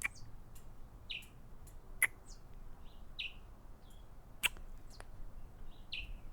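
Close-miked kissing sounds: a series of soft lip smacks and kisses, with three sharper smacks about two seconds apart.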